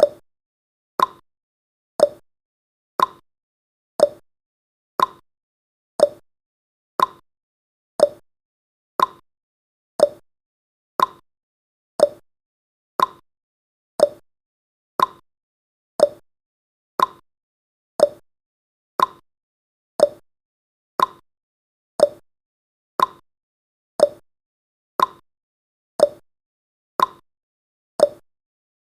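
Clock-style ticking sound effect of a countdown timer: one short, sharp tick every second, alternating between a lower and a higher tick like a tick-tock.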